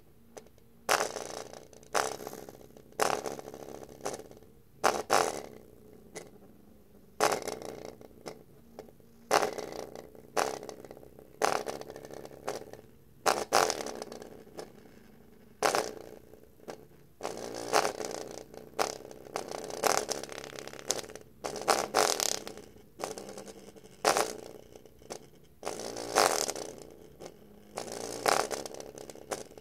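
Tiny full-range speaker driver pushed by the subwoofer channel of an Acoustic Energy Aego M amplifier, blatting out a string of bass pulses about once a second, each starting sharply and dying away. The amplifier's heavy distortion makes every pulse come out as a harsh, rattling buzz.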